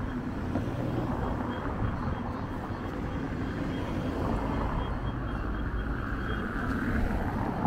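Street ambience: a steady low rumble of vehicle engine noise.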